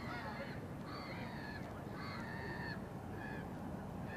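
Waterbirds calling on the river, a run of short calls about one a second, over a steady low background rumble.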